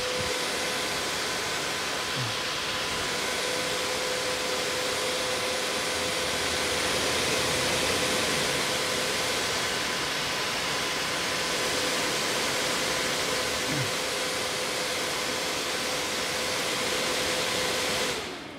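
Desktop PC CPU cooler fan, salvaged with its finned aluminium heatsink, running hard: a steady loud rush of air with a whining blade tone over it. The noise cuts off and dies away near the end.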